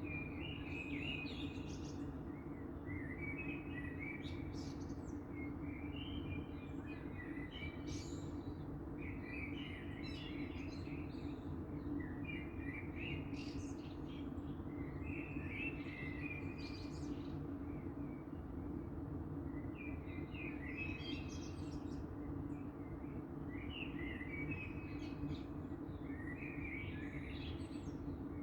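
Dawn birdsong: songbirds singing in short repeated phrases every two to three seconds, over a steady low hum.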